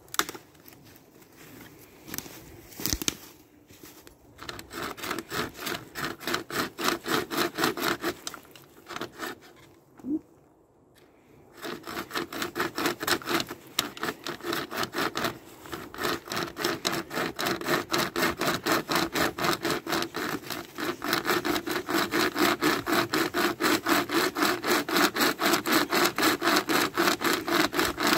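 Pocket chainsaw, a hand-pulled chain saw with paracord handles, being drawn back and forth through a log in a rhythmic rasp of about three strokes a second. It stops briefly about ten seconds in, then starts again and runs steady and stronger toward the end.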